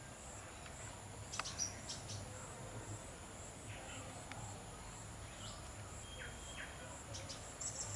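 Outdoor ambience: a steady high-pitched insect drone, with a few short chirps scattered through, the loudest about a second and a half in and near the end.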